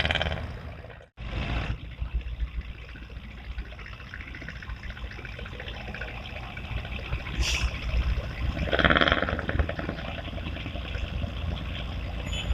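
Running river water with a low, steady rumble. It cuts out abruptly about a second in and resumes, and a brief louder sound comes about nine seconds in.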